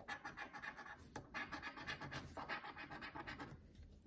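A scratch-off lottery ticket being scratched: quick repeated scraping strokes in short runs, pausing briefly about a second in, a little after two seconds, and near the end.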